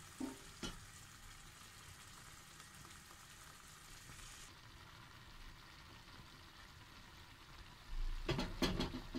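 Cherry tomato sauce sizzling gently in a frying pan on a gas flame, a steady soft hiss. Near the end there is a short clatter of knocks and handling noise.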